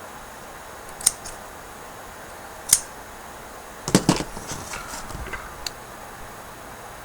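Small scissors snipping cotton wick, two sharp single snips about a second apart, then a louder cluster of clicks about four seconds in followed by light rustling and ticks as the cotton is handled.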